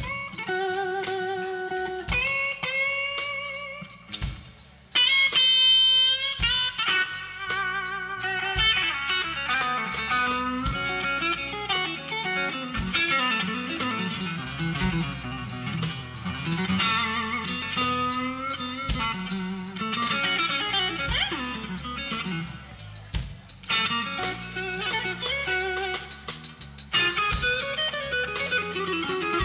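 Live blues band playing a slow blues instrumental, led by an electric guitar soloing with bent notes and vibrato over bass and drums.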